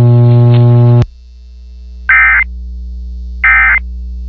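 A loud steady low buzz cuts off about a second in. Two short bursts of shrill warbling data tone follow, about 1.3 seconds apart. They are the Emergency Alert System end-of-message signal that closes a broadcast Severe Thunderstorm Warning.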